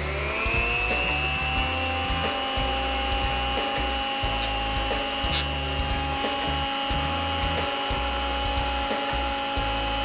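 Porter-Cable 6-inch benchtop jointer's electric motor starting up, spinning up over the first moment, then running with a steady whine.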